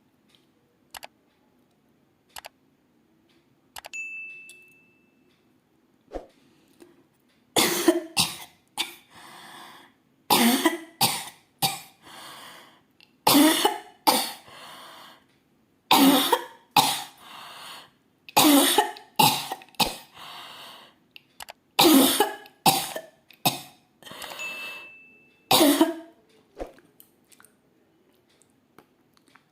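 A woman coughing on purpose for a coughing challenge, in repeated bouts of two or three sharp coughs, each followed by a breath in. The coughing starts about seven seconds in and stops shortly before the end.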